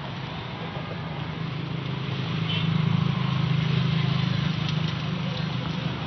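A motor vehicle's engine running with a low drone that grows louder to about halfway through, then eases off again.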